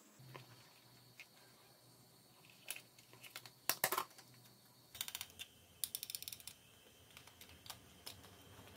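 Small metal screws and a screwdriver clicking and tapping against a steel worktable and a hard plastic housing during hand disassembly. The clicks come in short quick runs, the loudest about four seconds in and again from five to six and a half seconds.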